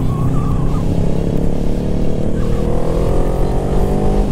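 Motorcycle engine under acceleration, its pitch rising steadily from about a second in, heard from the rider's own bike with a steady low rumble of wind and road beneath it.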